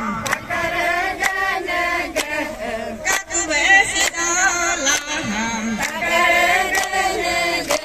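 A group of mostly women's voices singing a Galo folk song together, keeping time with steady hand claps.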